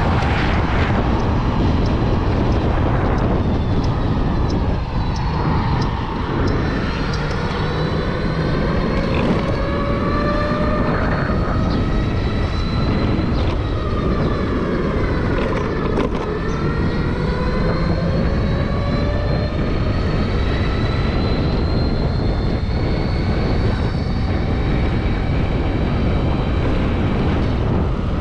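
Suzuki e-Let's electric scooter's motor whining as it rides, the whine rising and falling in pitch several times with speed, over a steady low rumble of wind and road noise.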